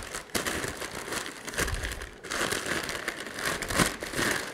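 Brown kraft packing paper crumpling and crinkling as it is handled and pulled out of a cardboard box, with a brief pause about two seconds in.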